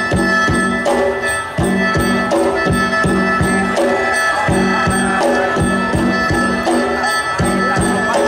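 Isan pong lang folk ensemble playing live: a fast, steady drum beat of about four strokes a second under held high notes.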